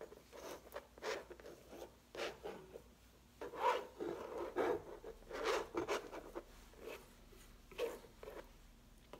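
Leftover acrylic paint being scraped off a palette: a series of short, irregular scraping strokes, loudest about four and five and a half seconds in.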